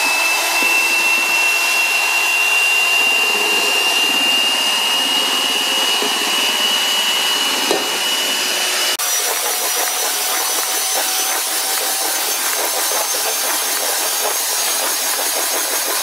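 Electric hand mixer running at high speed, its beaters whipping hot sugar syrup into egg whites for marshmallow. A steady high motor whine that shifts abruptly to a different pitch about nine seconds in.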